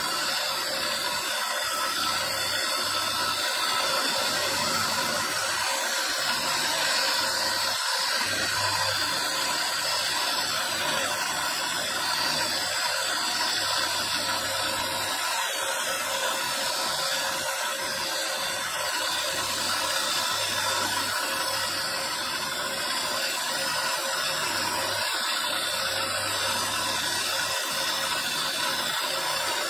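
Motor-driven rotary carving spindle running steadily, its small burr grinding onyx marble: a continuous hiss with a faint steady whine.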